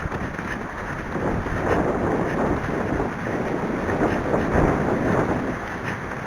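Strong wind buffeting the microphone: a loud, rumbling rush that gusts up and down.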